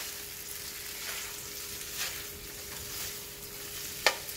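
Fettuccine and chicken sizzling in a hot frying pan as they are tossed with metal tongs, with soft stirring noises and a sharp click of the tongs near the end, under a faint steady hum.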